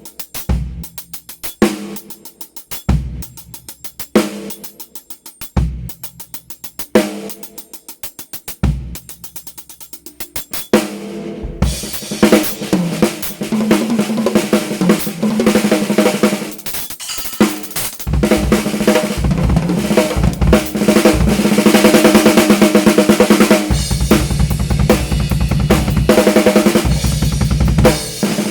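Drum kit with a solid-shell snare carved from Thai wood: a slow, sparse groove of bass drum and snare strokes about every second and a half with light hi-hat ticks, then about twelve seconds in it breaks into dense, rapid playing with fills and crashing cymbals that grows louder.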